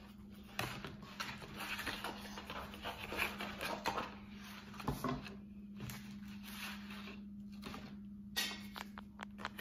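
Cardboard and a ceramic pot being handled on a wooden table: soft rustling and scraping with a few light knocks, and a quick run of small clicks near the end.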